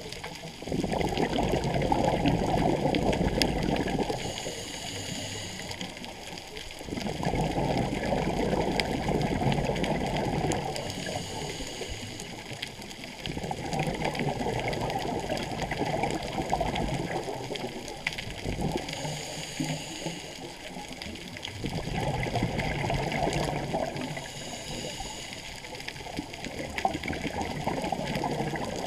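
Scuba diver breathing on a regulator underwater: about four breaths, each a short hissing inhale through the regulator followed by a long, bubbling rush of exhaled air.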